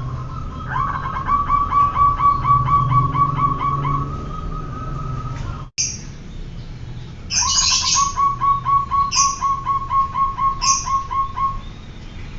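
Zebra dove (perkutut) cooing in two long bouts of rapid, evenly repeated short notes, about four a second. The first bout cuts off abruptly about halfway through. A few short, high chirps from another bird come during the second bout.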